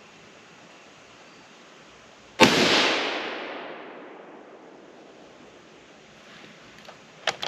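A single shot from a Remington 700 PSS bolt-action rifle in .308 Winchester about two and a half seconds in, its report echoing away over about two seconds. Near the end, a few sharp metallic clicks as the bolt is worked.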